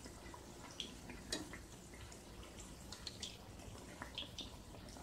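Spinach and urad dal vadas deep-frying in hot oil in a kadai: a faint steady sizzle with scattered small crackles and pops.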